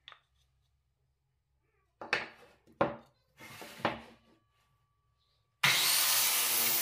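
A few knocks and short clatters of wooden blocks being handled and set down on a plywood table. About five and a half seconds in, an electric circular saw switches on abruptly and runs loudly and steadily.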